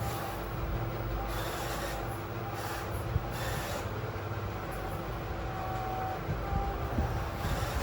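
Small electric motors and gearboxes of radio-controlled construction vehicles running with a steady whirring rumble, and a single sharp click about three seconds in.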